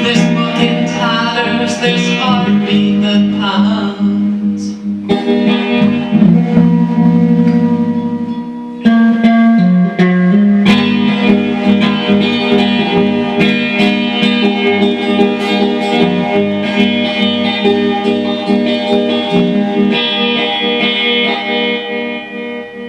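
Music: the guitar-led instrumental close of a song, sustained plucked chords ringing, fading out near the end.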